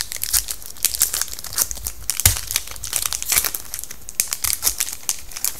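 Foil wrapper of a hockey card pack being torn open and crinkled, a dense run of irregular crackles, with a single thump about two seconds in.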